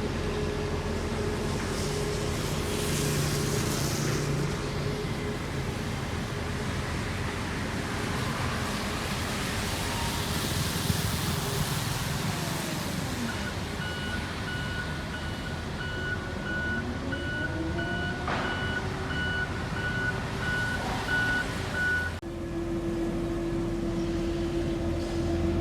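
Heavy road-construction machinery and trucks running at an asphalt paving site, a steady engine hum with some rising and falling engine pitch. A reversing alarm beeps repeatedly through the middle. The sound changes abruptly near the end to a single steadier engine drone.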